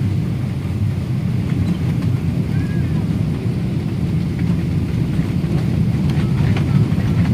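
Steady low rumble heard inside an airliner's cabin as the jet rolls fast along the runway after touchdown.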